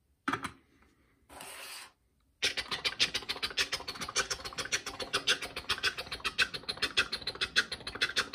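Plastic toy train set moving along, a fast continuous clattering rattle starting about two and a half seconds in, after a short knock as a toy drops into a wagon and a brief hiss.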